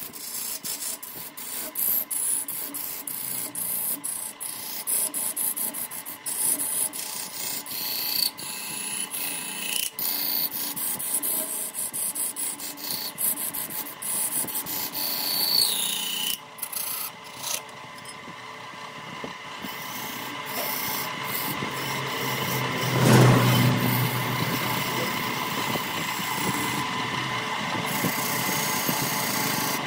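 Turning tool or abrasive rasping against wood spinning on a wood lathe: many quick scraping strokes in the first half, then a steadier rubbing with one louder surge about two-thirds of the way through, over a faint steady whine.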